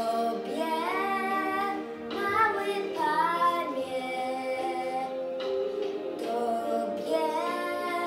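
A young girl singing a Polish Christmas carol solo over instrumental accompaniment.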